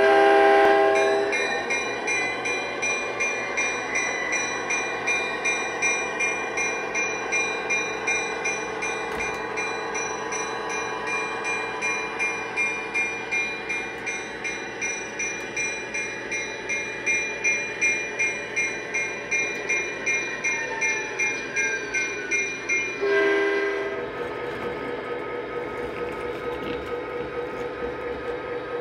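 Onboard sound system of an O-scale model Union Pacific SD60M diesel locomotive: a horn blast, then the diesel engine sound running with a steady pulse and a repeating high ringing tone while the locomotive rolls slowly. Near the end a short horn blast sounds and the engine sound drops to a quieter idle as it stops.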